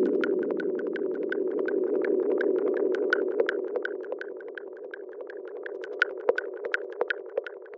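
Background electronic music: a sustained synthesizer pad that fades down over several seconds, under a light ticking pulse about four times a second.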